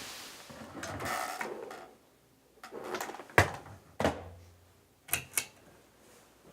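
Rustling, then about six sharp knocks and clunks, the loudest about three and a half seconds in.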